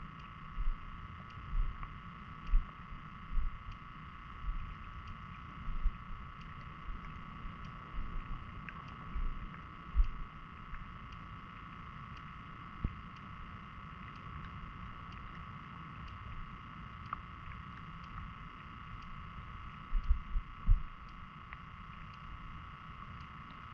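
Underwater sound picked up by a submerged GoPro Hero 10: dull low thumps, about one a second at first and then sparser, with a cluster near the end, over a steady hum with faint high tones.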